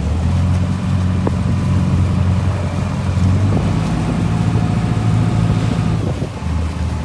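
Small passenger ferry's engine running with a steady low drone; its note shifts slightly about six and a half seconds in.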